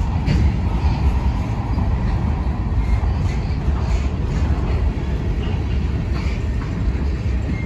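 Freight cars (covered hoppers and tank cars) rolling past: a steady rumble of steel wheels on rail, with a few faint clicks.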